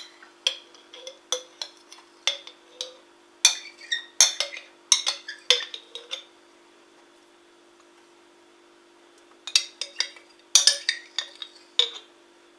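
A spoon tapping and scraping against a glass bowl as thick soured cream is knocked off it: a string of sharp clinks, a pause of a few seconds, then another quick run of clinks.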